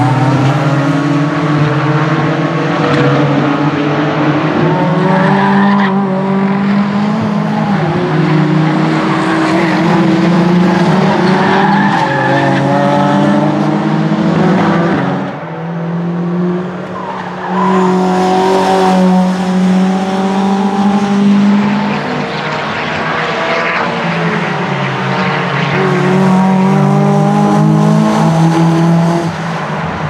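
Several Mitjet 2L and Superturisme racing cars passing one after another. Their engines rise and drop in pitch as they accelerate and shift through six-speed sequential gearboxes. The sound dips briefly about halfway through, then comes back loud as the next cars pass.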